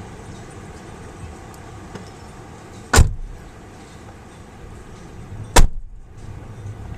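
Strong wind buffeting the microphone as a steady low rumble, broken twice by a sharp, loud knock, about three seconds in and again near the end.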